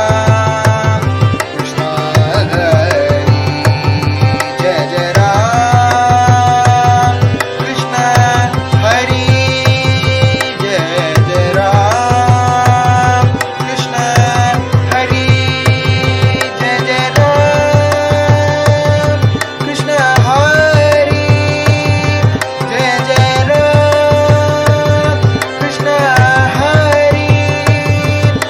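Bhajan in raga Kapi: a voice sings ornamented, gliding melody lines over harmonium, with a steady mridangam rhythm track keeping time.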